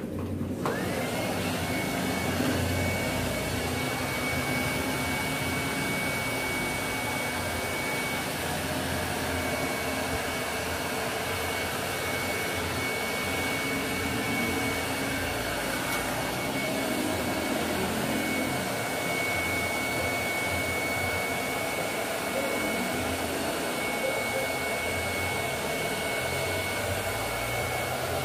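Handheld hair dryer switched on and running steadily, a blowing rush of air with a thin high whine from its motor that settles within the first second.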